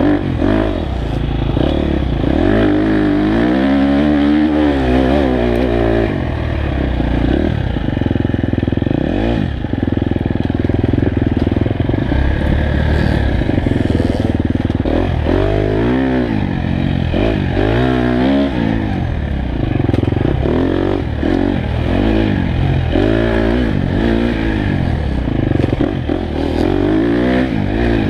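Dirt bike engine ridden along a trail, its pitch rising and falling again and again as the throttle is opened and closed.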